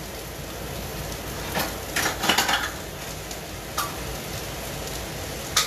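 Kitchen utensils and dishes clinking and clattering a few times, in a cluster about two seconds in and again near the end, over a steady sizzling hiss from food frying in the pan.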